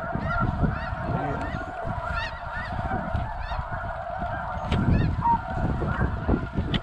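A large flock of snow geese calling overhead: many overlapping high, yelping honks over a steady din of massed calling, with a low rumble underneath.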